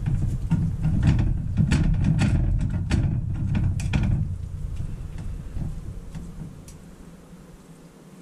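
Metal forks clicking and scraping against a plate while tender slow-cooked venison roast is shredded, with many quick clicks in the first half and only a few after. Under them a loud low rumble fades away over the second half.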